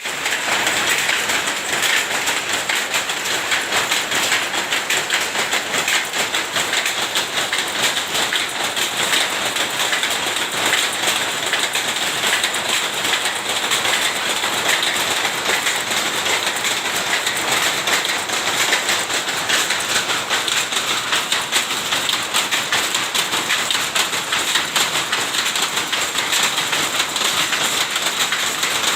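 Tapis cloth-making textile machine running, with a rapid, even clatter that keeps up without a break.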